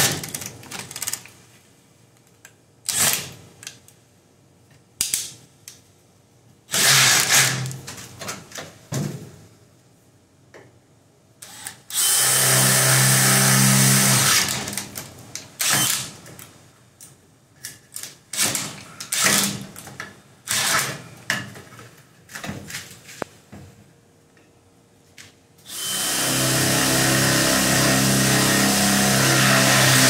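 DeWalt XR cordless drill boring pilot holes through a lock-prep template into an aluminum door stile, recessing each hole so the router will not jump later. It runs in several steady bursts, the longest near the end lasting about four seconds, with short clicks and knocks between the runs.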